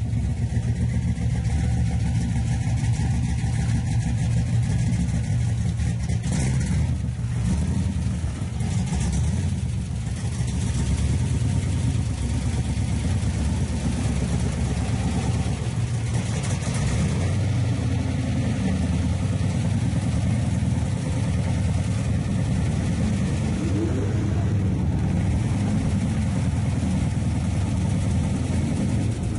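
A 400 hp 1972 Chevrolet Nova's engine idling, loud and steady.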